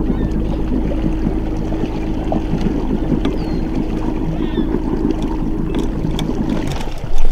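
Boat motor running steadily as the boat travels across the water, with water noise over it. The motor stops about six and a half seconds in, followed by a loud knock just before the end.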